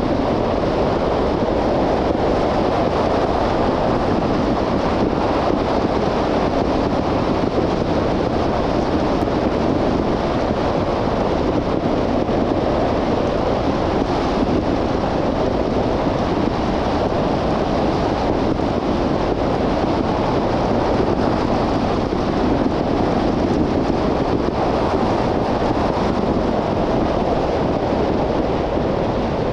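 Steady road noise of a car driving along: tyres on pavement and wind rushing past, an even noise with no changes in level.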